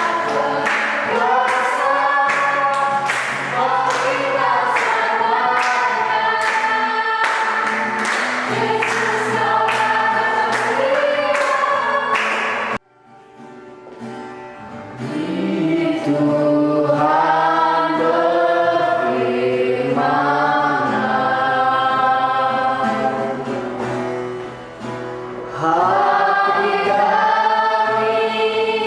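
A group singing a Christian worship song, with a steady beat behind it at first. About 13 seconds in the sound cuts off abruptly. The singing comes back softer and without the beat, then grows loud again near the end.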